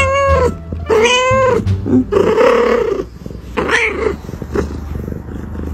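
A tabby cat meowing in several long, drawn-out calls in the first four seconds, one of them rougher and more strained. One call sounds like the word "ibu". The cat then goes quieter.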